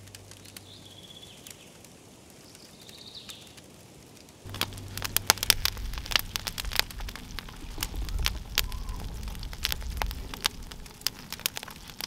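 Quiet ambience with a few faint high chirps, then, about four and a half seconds in, an open wood campfire crackling with many sharp pops over a low rumble.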